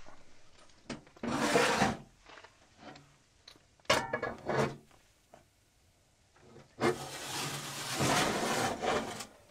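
Scraping and rubbing of a utensil on cookware as cooked food is handled. It comes in two spells, a short one about a second in and a longer one from about seven seconds to near the end, with a few sharp knocks between.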